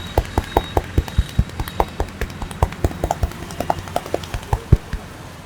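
Hands tapping and slapping on a head in a fast, uneven rhythm of about four or five strokes a second, as in a barber's percussive head massage. The strokes stop about five seconds in, with a steady low hum of traffic underneath.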